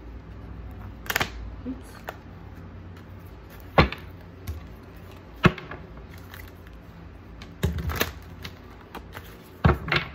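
Tarot cards handled and set down on a tabletop: several sharp taps and clicks at irregular intervals, two of them in quick clusters near the end.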